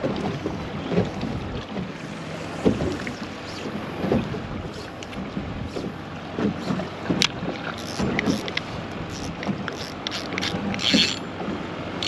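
Wind buffeting the microphone over choppy water, with irregular low thuds of small waves slapping a small boat's hull. Near the end come brighter rustles and clicks as a spinning reel is handled.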